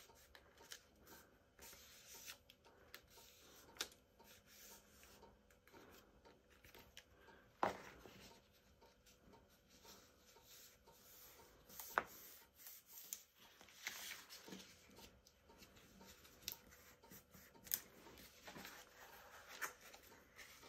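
Faint rustling and rubbing of cardstock as it is folded and creased by hand along its score lines, with a few sharp light ticks spaced through it.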